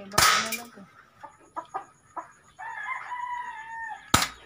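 A rooster crows once, a held call of about a second and a half in the second half. A loud sharp crack comes just after the start and another just before the end, with a few faint clicks in between.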